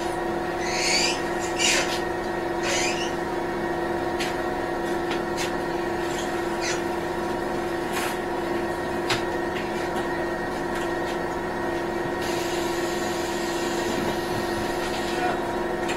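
Inside the cabin of a Scania Citywide CNG city bus: the engine and drivetrain run with a steady hum and a constant low whine, with light clicks and rattles from the cabin fittings. A few short hisses come in the first three seconds.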